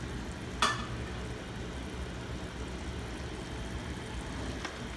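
Steady low kitchen hum, with one sharp metallic clink of cookware about half a second in and a faint click near the end.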